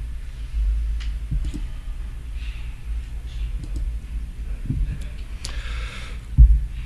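Low steady rumble of a small hall picked up by the microphone, with a few soft thumps and faint clicks; the loudest thump comes near the end.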